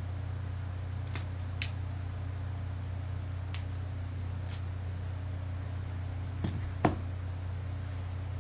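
Steady low hum, with a few soft clicks and crinkles from an elastic bandage being wound over a forearm splint. The loudest click comes about seven seconds in.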